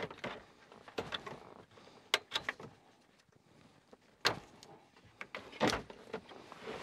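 Plastic wiring-harness connectors being unplugged from the back of a factory GM radio: several sharp clicks and snaps at irregular spacing, with the rustle of the radio and wires being handled.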